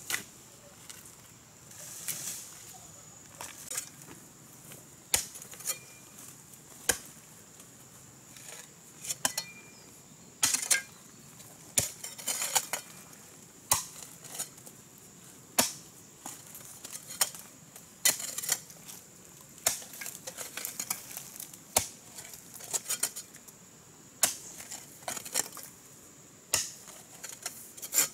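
Metal digging tools striking and scraping into stony earth: irregular sharp chinks and scrapes every second or two, some in quick clusters.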